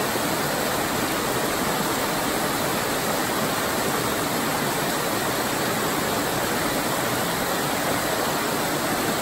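Small creek cascade pouring over rocks: a steady, even rush of water.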